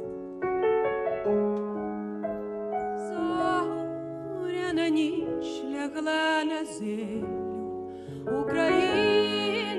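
Piano playing held chords, with a singer's voice coming in about three seconds in and singing a slow melody with vibrato over it.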